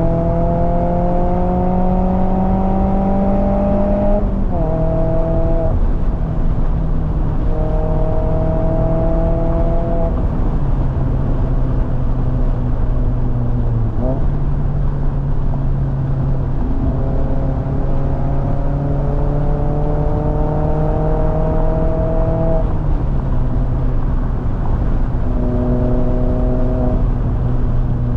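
ND Mazda MX-5 Miata's 2.0-litre four-cylinder engine and exhaust pulling hard up a grade, heard from the open cockpit over wind and road noise. The note climbs slowly, drops sharply about four seconds in, then steps up and down in pitch several more times as the throttle comes on and off.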